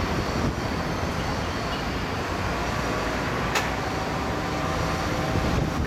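Steady city traffic noise with wind buffeting the microphone, and a single sharp click about three and a half seconds in.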